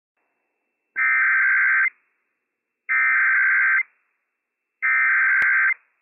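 Emergency Alert System SAME header data from NOAA Weather Radio: three bursts of digital data tones, each about a second long and about two seconds apart, encoding the Child Abduction Emergency alert.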